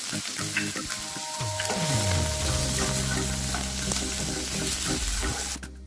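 Onion, tomato and green chillies sizzling in hot ghee in a nonstick kadai, stirred with a wooden spatula that knocks and scrapes against the pan. A low steady hum comes in about two seconds in.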